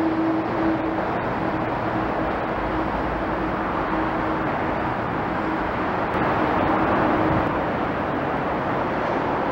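Steady rushing noise of road traffic with a faint steady hum, growing a little louder about six seconds in.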